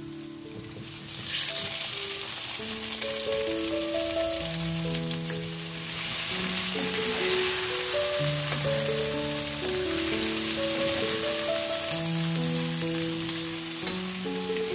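Food sizzling in hot oil in a frying pan, the sizzle starting up sharply about a second in and carrying on steadily. Background music with held melody notes plays underneath.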